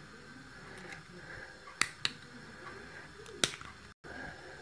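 Sharp clicks from a padlock being handled: two close together about two seconds in and a third about three and a half seconds in, over quiet room noise. The sound drops out for an instant near the end.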